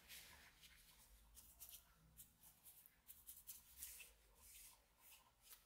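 Faint, irregular soft swishes of a bristle paintbrush stroking a wet finish onto a wooden axe handle.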